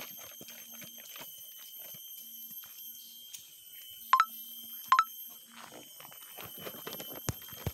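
Rainforest ambience: a steady high-pitched insect whine, with two short sharp chirps less than a second apart midway and soft footsteps on the dirt trail near the end.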